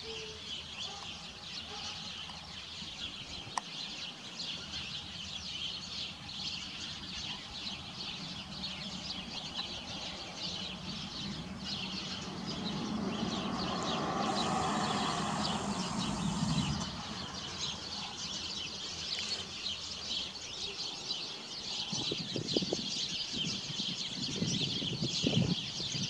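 Many small birds chirping and twittering steadily. A broad low rumble swells and fades around the middle.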